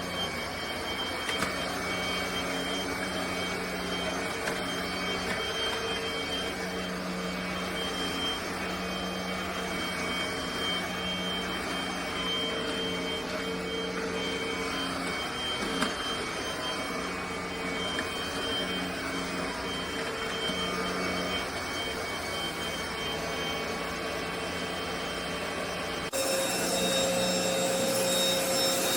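Cordless stick vacuum running steadily with a motor hum and whine. Near the end it jumps suddenly to a louder, higher-pitched whine.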